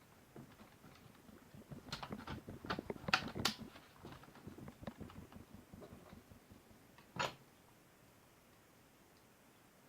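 Laptop back cover being handled and pressed into place: scattered clicks and knocks, a cluster of sharper clicks two to three and a half seconds in, and one last sharp click about seven seconds in.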